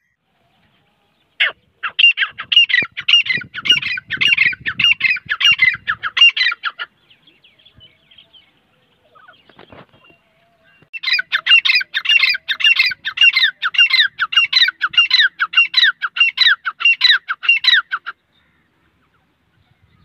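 Grey francolin calling: two long runs of quick, evenly repeated high notes, about three a second, the second run starting about eleven seconds in after a pause.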